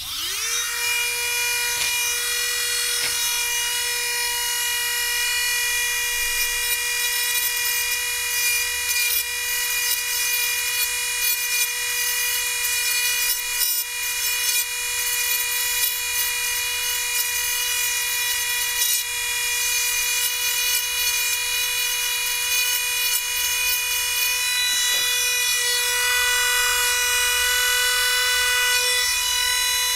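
Handheld Dremel-style rotary tool spinning up and then running at a steady high whine while its bit grinds a corner off a small headphone part, rebating it so the battery can slide past.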